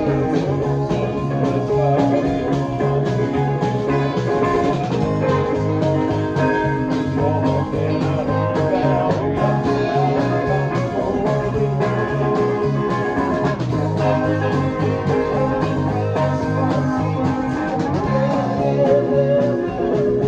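A rock band rehearsing a song. An electric bass plays a steady line of changing low notes under drums and other instruments.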